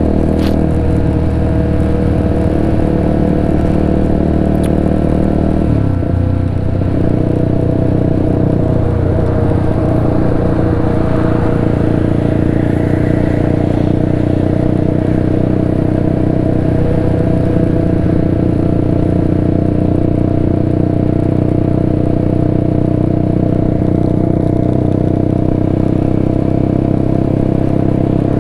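Motorcycle engine running at a steady cruising speed, heard up close from the rider's own bike. The revs dip briefly about six seconds in, then hold steady again.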